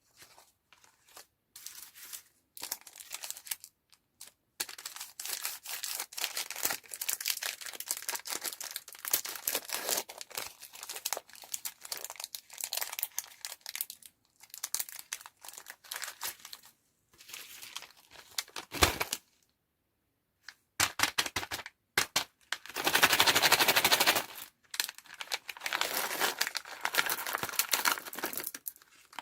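Candy wrappers and packaging crinkling and tearing open, in stretches with short pauses; a louder, denser stretch of tearing comes about two-thirds of the way through.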